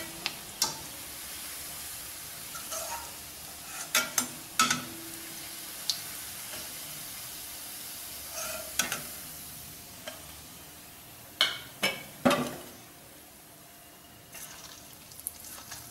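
Oil sizzling in a steel kadai as deep-fried soya-chunk balls are lifted out with a perforated metal ladle, with a dozen or so sharp clicks and knocks of the ladle against the pan. The sizzling dies down after about ten seconds once the balls are out, and picks up again faintly near the end.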